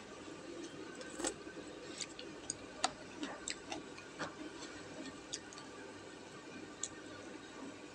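Wooden chopsticks clicking and tapping against a stainless steel pan while stirring and picking up noodles: scattered sharp clicks, bunched in the first half with a few more later.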